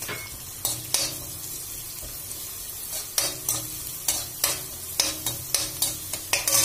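Chopped garlic and spring-onion whites sizzling in hot oil in a metal kadai, stirred with a metal spoon that scrapes and clinks against the pan. The strokes are few at first and come several a second in the second half.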